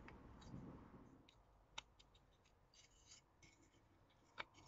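Near silence: faint rubbing as hands handle a freshly drilled wooden batten and brush sawdust off it for about the first second, then two soft clicks.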